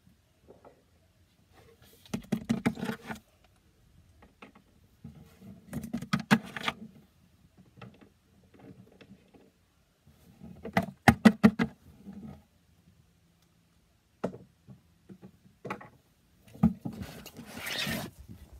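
Bursts of clicking and tapping as small toys are handled and set down on a hard surface, with a few single knocks. Denser rustling handling noise close to the microphone near the end.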